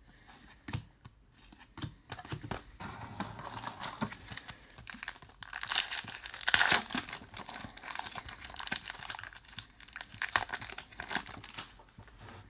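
A trading card pack's wrapper crinkling and tearing as it is ripped open by hand, in irregular rustling bursts, loudest about halfway through.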